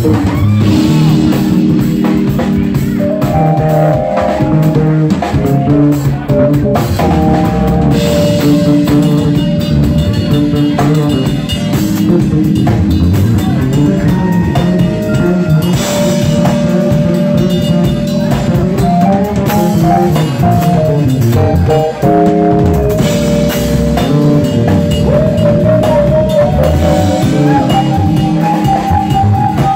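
Live R&B/funk band playing an instrumental passage: keyboards carrying a melody of held notes over guitar and a steady drum kit.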